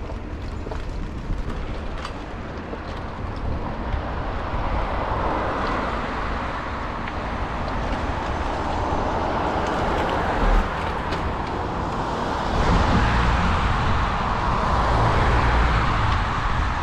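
Wind rushing over a moving bicycle's camera microphone, with road traffic passing. The rush swells a few times and grows louder about twelve and a half seconds in, and there is one short knock about ten and a half seconds in.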